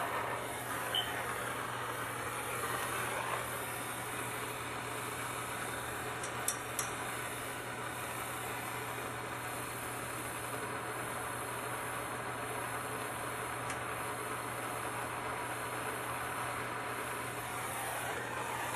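Handheld gas torch flame burning with a steady hiss as it heats a copper pipe and brace joint for soldering, with a couple of faint clicks about six and a half seconds in.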